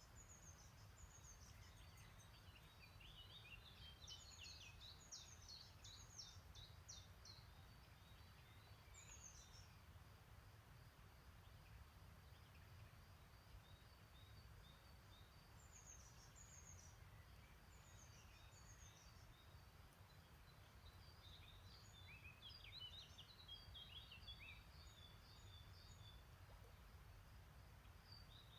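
Faint songbirds singing and chirping in spring woodland, in scattered bursts of quick high notes, over a steady low rumble.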